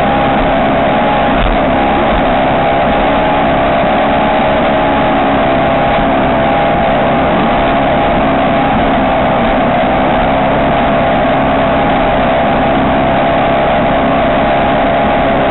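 Arrow ski race boat's engine running hard at a steady, nearly unchanging pitch under a constant rushing noise.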